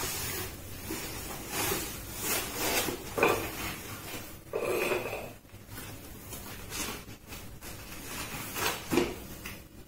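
White foam packing sheet rustling and rubbing in irregular bursts as it is unfolded by hand, with one longer, louder rub about halfway through.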